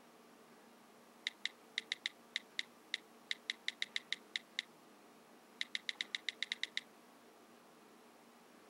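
Smartphone keyboard clicks as a text message is typed: short, crisp ticks in two runs, first an uneven string of about sixteen, then after a short pause a fast, even burst of about a dozen. A faint steady hiss sits underneath.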